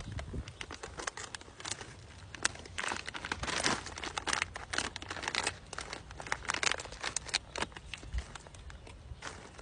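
Plastic MRE cookie pouch crinkling and crackling in the hands as it is opened and the cookies are handled, in a run of irregular sharp crackles.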